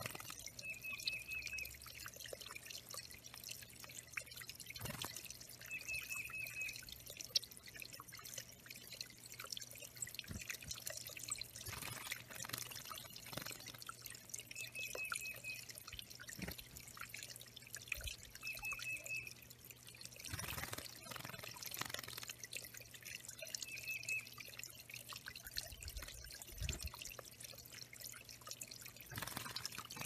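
Water trickling and dripping off stones into a shallow pebbled bird pond, with bouts of splashing as a yellow-rumped warbler bathes and flaps its wings in the water. A bird nearby sings a short, quick trilled phrase five times, every four to five seconds.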